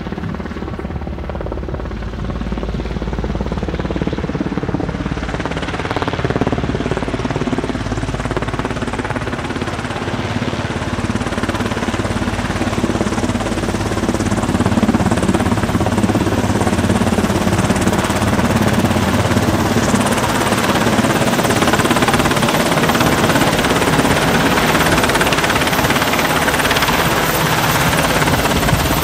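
Sikorsky Black Hawk helicopter's rotor and twin turbine engines running steadily, growing louder about halfway through as it comes closer and descends to hover low over the water.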